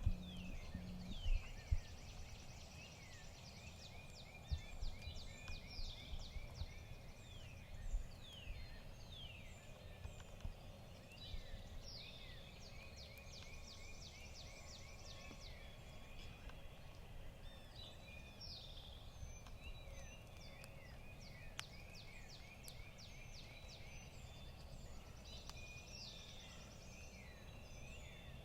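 Wild birds singing and calling over one another, many short falling notes and trills with no pause, over a low outdoor rumble. A few sharp knocks come in the first eight seconds.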